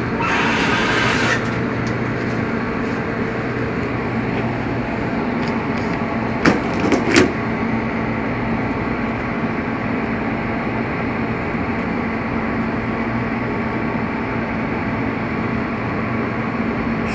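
Steady machine hum made up of several held tones, with a brief hiss in the first second and two short knocks about six and seven seconds in.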